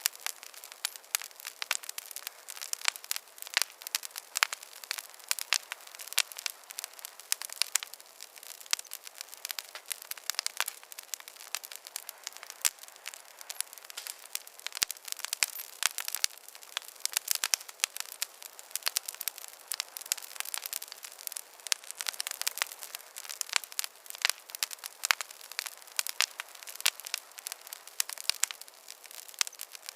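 Campfire crackling steadily: many sharp, irregular pops and snaps every second over a soft hiss of burning wood.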